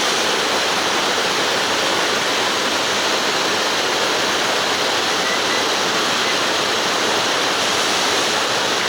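Steady rush of flowing river water, an even hiss that holds without a break.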